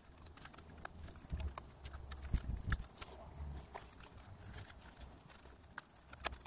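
Scattered light clicks and taps of hands handling a replacement radiator's plastic tank, hoses and foam strip, over a steady low rumble.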